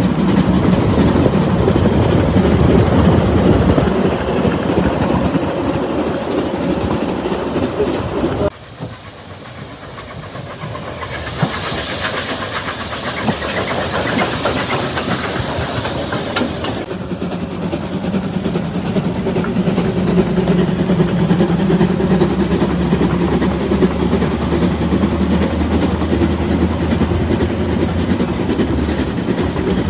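Narrow-gauge steam train running, cut off abruptly about eight seconds in. Then a Garratt steam locomotive passes close with a loud, steady steam hiss for about five seconds, which stops suddenly, and the sound of the train running returns.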